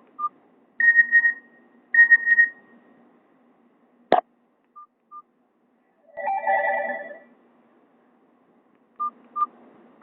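Nokia 216 mobile phone giving short electronic beeps, typical of its keypad tones: pairs of quick beeps, two brief higher tones, and a short cluster of tones a little after six seconds. A single sharp click comes about four seconds in.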